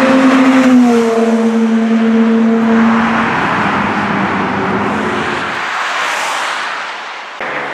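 Cars driving past on a busy road. A sports car's engine note drops in pitch about a second in as it goes by, then fades over the next few seconds, over steady tyre and traffic noise.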